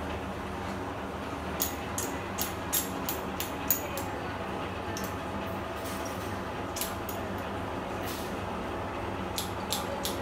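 Steady workshop room hum with scattered light clicks and taps: a run of them about two to four seconds in and a few more near the end.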